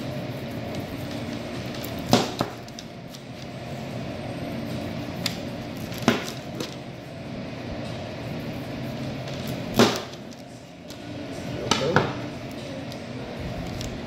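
Large knife chopping crosswise through a whole coho salmon to cut steaks, each stroke through the backbone a sharp knock on the table. There are several chops a few seconds apart, some in quick pairs, over a steady background hum.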